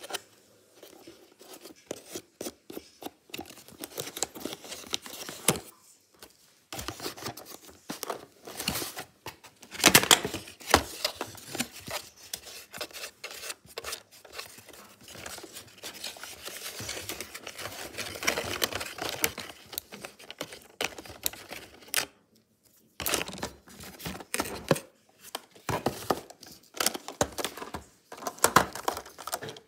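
Cardboard packaging of a toy RC car being handled and pulled apart: irregular rustling, scraping and tearing of the cardboard insert, with sharp clicks and knocks as plastic retaining clips are pulled off.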